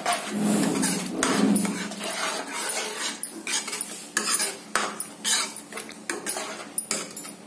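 A steel ladle scraping and knocking against a kadai as thick tomato-onion masala is stirred, in quick irregular strokes.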